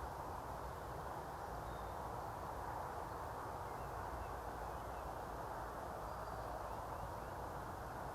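Steady low rushing ambience with a few faint, short high bird chirps scattered through it.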